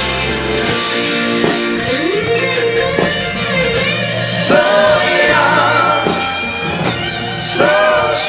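Music: a song with guitar accompaniment, a sung voice line gliding in about two seconds in and returning with wavering held notes about midway and near the end.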